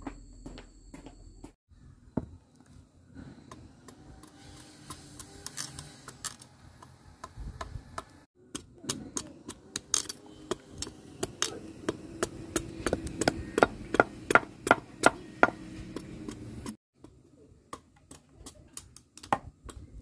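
A cleaver chopping the rind off a squash against a wooden block: scattered knocks at first, then a long run of quick, sharp chops, about two to three a second, that stops abruptly near the end.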